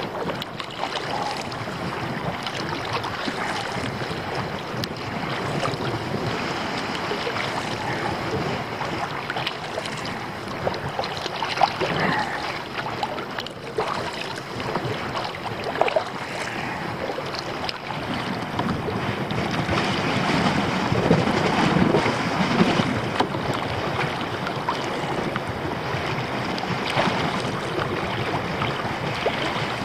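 Wind rushing across the microphone over water splashing and lapping around a kayak as it is paddled through shallow water, with a few short knocks.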